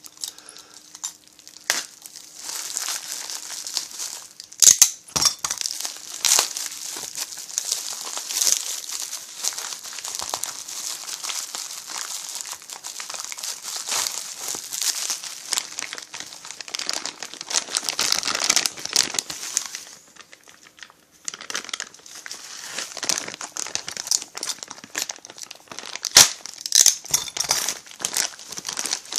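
Plastic packaging crinkling steadily as chainsaw kit parts are unwrapped by hand, with a few sharp knocks, briefly pausing about two-thirds of the way in.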